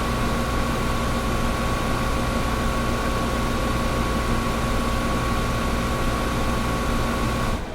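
Air conditioner running: a steady rushing hiss with a constant hum and a thin whine. Just before the end the hum and whine stop suddenly and the level falls, leaving a fainter hiss.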